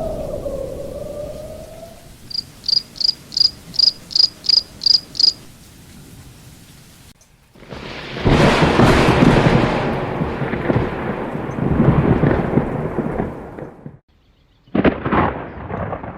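Thunderstorm: a long rolling peal of thunder with rain, then a second sharp clap near the end. Before it comes a run of about nine evenly spaced high chirps.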